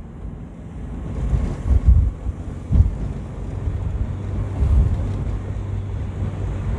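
Wind buffeting the microphone inside a moving small Chevrolet car, in uneven low gusts, over the steady hum of the engine and road noise.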